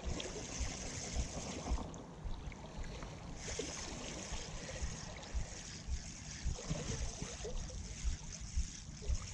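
Gusty wind buffeting an action camera's microphone in irregular low rumbles, over a high hiss that drops out about two seconds in and returns a second and a half later.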